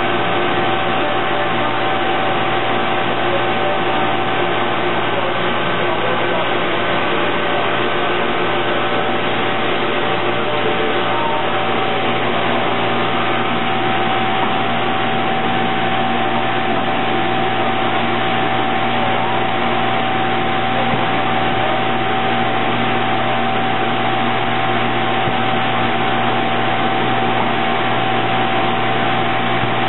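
Injection-moulding machine and its cup-stacking robot cell running, a steady whir with a low hum and a few held tones, and no separate strokes or clunks standing out.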